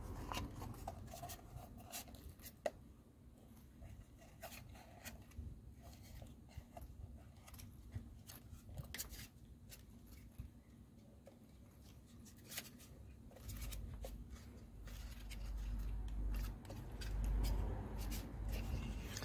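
Scattered small clicks and rubbing of a plastic cover being handled and pressed back onto a car radiator fan resistor housing. A low rumble comes in for the last few seconds.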